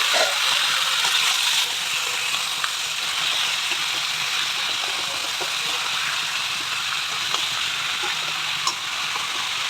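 Duck meat frying in hot oil and spice paste in a pan: a steady sizzle that eases slightly after about a second and a half, with a few light clicks.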